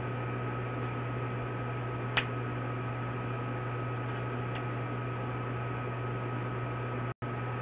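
Steady electrical hum and hiss from the sewer inspection camera's recording equipment, with one sharp click about two seconds in and a brief dropout near the end.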